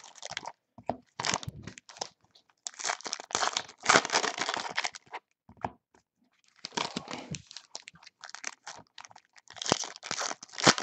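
Foil basketball trading-card packs being torn open and crinkled by hand, in several bursts of rustling with short pauses between.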